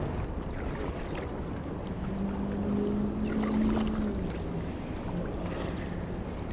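Double-bladed kayak paddle strokes dipping and pulling through calm water, with light drips and splashes over a low rumble. A low steady hum comes in about two seconds in and fades out about two seconds later.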